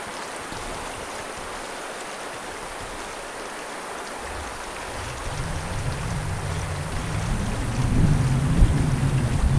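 Rattlesnake rattling its tail, a steady dry buzz. A low rumble builds from about halfway and becomes the loudest sound.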